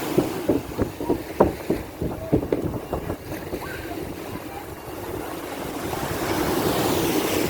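Mediterranean sea water splashing and washing, with wind on the microphone: a run of short slaps in the first three seconds, then a rising wash of surf that swells near the end.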